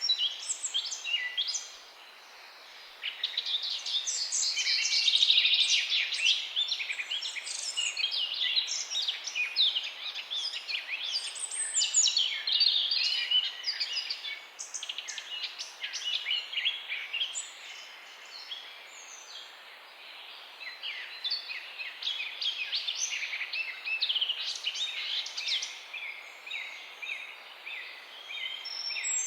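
A chorus of many small birds chirping together: a dense, overlapping run of short, high chirps and twitters, with a brief lull about two seconds in.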